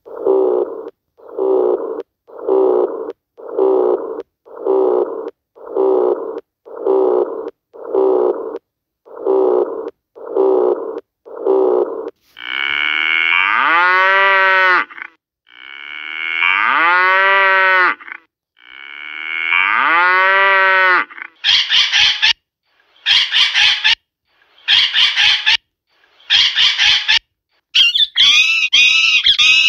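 A run of animal calls: first about a dozen short calls roughly a second apart, then three long bovine moos of a couple of seconds each, then short high-pitched calls that turn into dense, shrill calling near the end.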